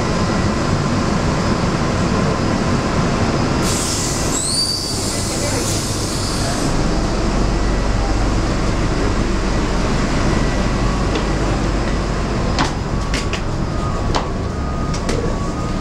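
Airport apron bus running with a steady rumble, and a loud hiss of air about four seconds in lasting some three seconds. A low hum follows, and a few sharp clicks come near the end.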